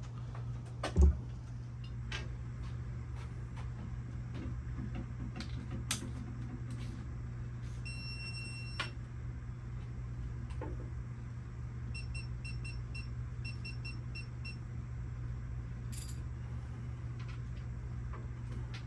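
Steady low hum of an engine shop with scattered light clicks of parts and tools, and a single knock about a second in. Midway, one electronic beep is held for about a second, and a few seconds later comes a run of short quick beeps.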